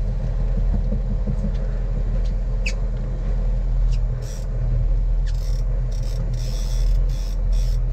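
Fishing boat's engine running steadily with a low rumble, with short bursts of high hiss and a brief squeak about three seconds in.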